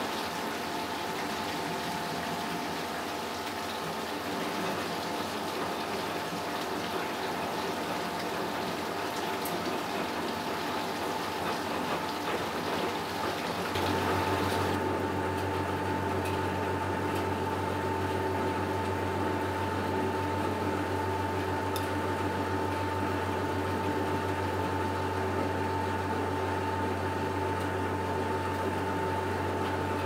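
A 1964 Miele Automatic 416 front-loading washing machine tumbling a sudsy load of whites, with water sloshing and rushing in the drum. About halfway through, a steady low machine hum starts and the higher rushing noise drops away.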